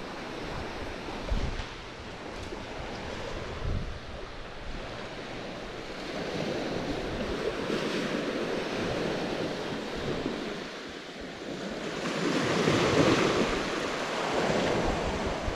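Small surf breaking and washing up onto a sand beach, swelling louder about six seconds in and again, more strongly, near the end.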